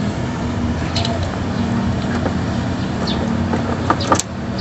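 Steady mechanical hum, with a few light metal clicks about four seconds in as the new thermostat is seated in its housing.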